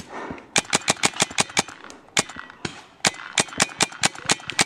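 Paintball marker firing rapid strings of shots, about seven a second: one string early on, two single shots about two seconds in, then a longer string to the end.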